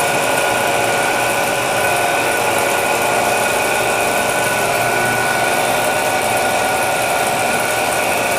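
Belt-driven dough roller machine running steadily, its motor and rollers giving a constant mechanical whine with several held tones as dough is fed through.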